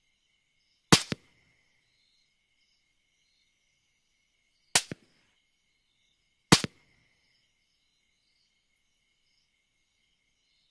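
Three rifle shots at coyotes, the first about a second in and the other two close together a little past the middle, each followed a split second later by a fainter second crack. A faint steady insect chirring runs underneath.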